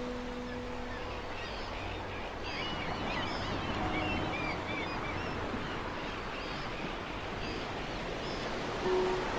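Seaside outdoor ambience: a steady wash of wind and water noise, with small birds chirping in a quick cluster of calls a few seconds in and again briefly near the end.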